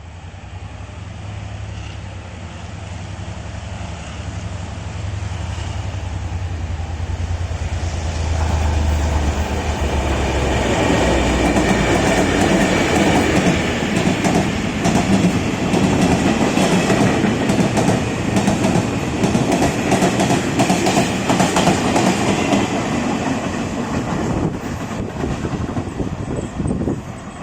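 Double-headed diesel-electric freight locomotives (R150 leading) working at full throttle, their engine drone swelling as they approach and pass. Then the freight wagons run by with a fast, crisp clickety-clack over the rail-joint fishplates, easing off near the end.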